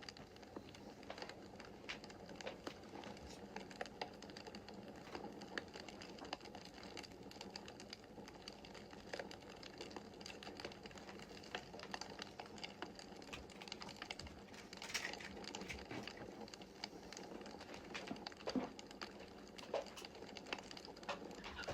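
Wood fire burning in a fireplace: a soft steady hiss of flames with frequent irregular crackles and small pops, a few louder snaps about 15 seconds in and near the end.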